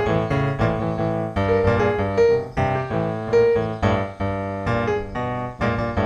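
Background piano music, a melody of struck notes over chords.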